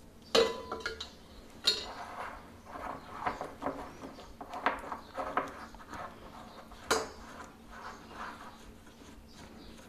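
Wire whisk clinking and scraping against a glass bowl, stirring ground dal powder with water into a batter, in irregular strokes with a few sharper clinks of metal on glass.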